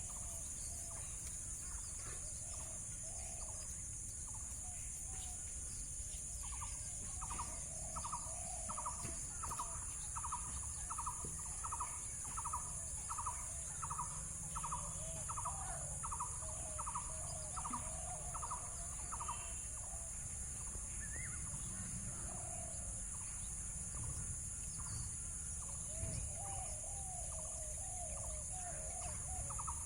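Birds calling: a short chirp repeated about twice a second for some twelve seconds, and again near the end, over lower wavering calls, with a steady high hiss and low background rumble.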